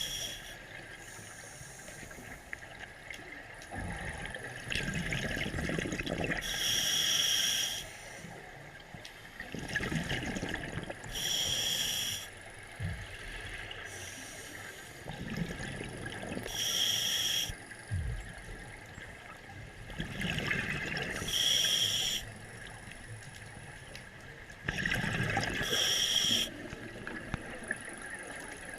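Scuba diver breathing through a regulator underwater: a slow, regular cycle of an inhaled hiss followed by a loud rush of exhaled bubbles, about six breaths.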